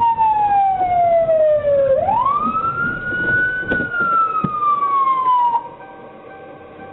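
Police car siren on a slow wail, its pitch falling steadily, sweeping back up about two seconds in, then falling again until it cuts off suddenly near the end. A couple of short, sharp knocks sound under it.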